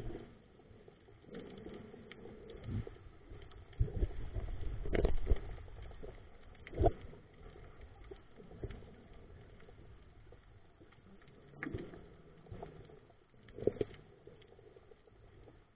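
Muffled underwater sound picked up by a camera in the water. Irregular low bubbling rumbles and a few knocks come and go, loudest about four to seven seconds in.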